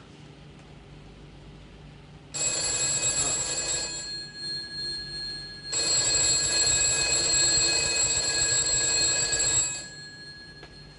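Bell of a black desk telephone ringing twice: a ring of about two seconds, then a longer ring of about four seconds.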